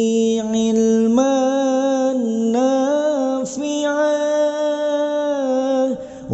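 Voice chanting an Arabic dzikir, holding long drawn-out notes that step and bend in pitch, with a brief pause near the end before the next phrase begins.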